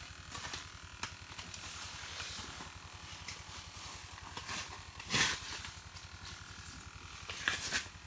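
Rustling and handling noises of a person moving about and taking hold of a fishing rod and reel. Two louder rustles come about five seconds in and near the end, over a steady low background hiss.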